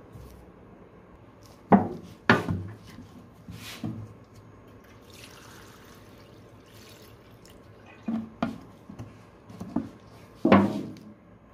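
Silicone remover poured from a metal can into the stainless steel tank of an ultrasonic cleaner over a bike chain, a splashing run in the middle, with several sharp clunks of the can against the tank before and after.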